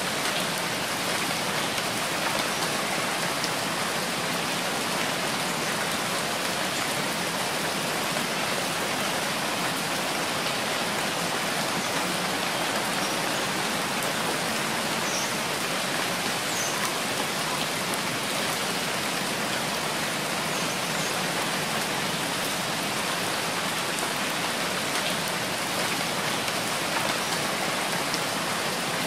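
Steady rain falling, an even, unbroken hiss of drops hitting surfaces.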